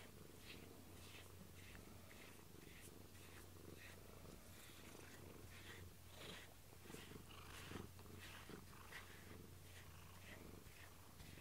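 Domestic cat purring steadily and faintly while a grooming brush is drawn through its fur, making a soft rustling stroke about twice a second.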